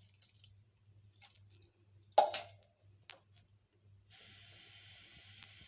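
Cooking utensils in use: a few light clicks, then one sharp clank of a utensil against a pot about two seconds in and a lighter click a second later. A steady hiss begins about four seconds in.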